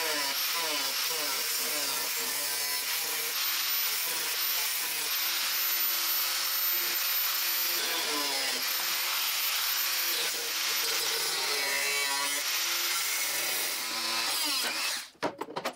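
Angle grinder with a thin cut-off wheel cutting through rusty sheet-steel car firewall: a steady whine whose pitch wavers as the wheel bites and eases in the cut. It stops abruptly about a second before the end.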